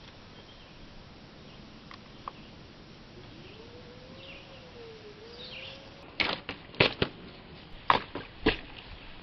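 Empty aluminium cans knocking and clattering against a wooden fence rail: about seven sharp clacks in quick succession, starting about six seconds in and lasting about two and a half seconds.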